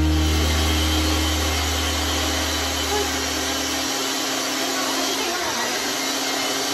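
Single-serve personal blender running steadily, blending a frozen-fruit smoothie. Underneath, a low sustained note from the intro music stops about four seconds in.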